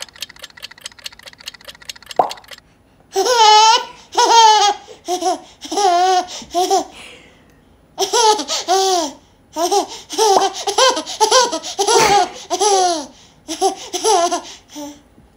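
An eight-month-old baby laughing in several runs of high giggles, each a string of quick rising-and-falling squeals, starting about three seconds in. Before the laughter, a quick run of rapid clicks.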